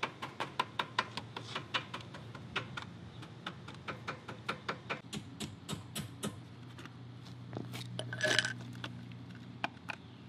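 Quick, irregular light taps of a small hammer on paper held over the metal intake flange of a 420cc Predator engine, cutting out a paper gasket by tapping its outline against the flange edge. A brief louder scraping sound comes about eight seconds in.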